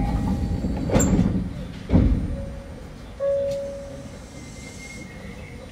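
Cabin noise inside an Osaka Monorail 2000 series car, a rubber-tyred straddle-beam monorail, with three heavy thuds about a second apart near the start, then short held tones over a steady low rumble.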